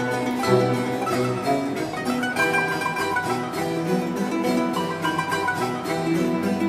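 Instrumental background music led by plucked strings, moving from note to note.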